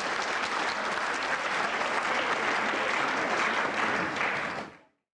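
Audience applauding, a steady dense clapping that fades out quickly near the end.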